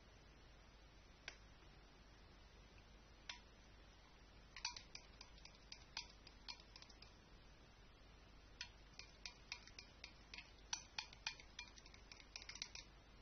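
Light, sharp clicks and clinks of small hard objects: a few single ones at first, then quick irregular runs of them.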